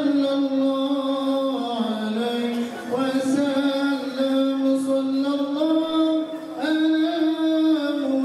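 Voices chanting a slow melody in unison, long held notes stepping up and down in pitch every second or two, as in a Malay kompang troupe's sung chant.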